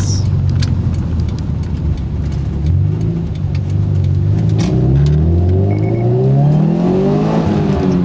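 Subaru WRX's turbocharged flat-four, heard from inside the cabin, running steadily at low revs, then revving up under boost for about four seconds and dropping back at a gear change near the end. The car pulls smoothly now that the centre flange silencer has been taken out to lower exhaust back pressure, leaving two silencers fitted.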